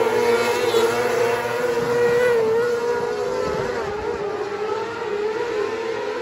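Several 600cc mini sprint cars racing on a dirt oval, their motorcycle engines running at high revs, the pitch rising and falling as they lap.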